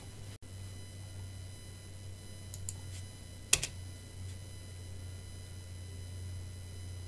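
A few keystrokes on a computer keyboard, faint at first, with one sharp, louder key press about three and a half seconds in, over a steady low hum.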